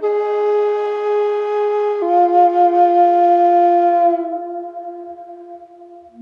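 Calm background music of long held, flute-like notes sounding together. The notes step to a new pitch about two seconds in, then fade away near the end.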